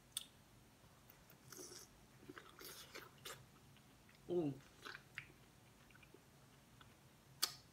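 Quiet close-up eating sounds: biting into sauce-dipped corn on the cob and chewing, with small wet mouth noises. About four seconds in a short hum of the voice falls in pitch, and a sharp click comes near the end.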